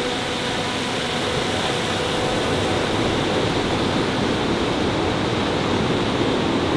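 Steady rushing of a mountain creek flowing fast over rocks, swollen after days of heavy rain; a continuous, even roar without breaks.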